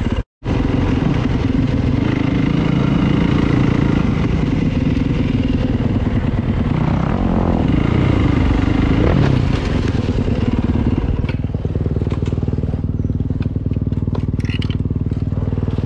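Dirt bike engine running as the bike is ridden along a gravel road, easing off after about ten seconds. A few sharp clatters follow near the end.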